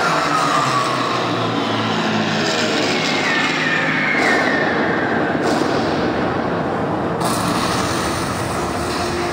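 Recorded sound effect of a rumbling vehicle played loud over a sound-and-light show's loudspeakers, with slowly falling whistling tones in the first half; it runs into train sounds.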